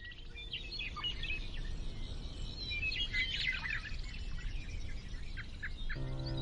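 Small birds chirping and twittering over a soft outdoor hiss, a nature ambience bed. Near the end a soft music chord comes in, held steady under the birdsong.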